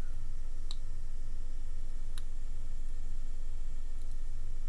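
Two small, sharp clicks, about a second and a half apart, from fingers handling a small circuit board and its broken slide switch, over a steady low hum.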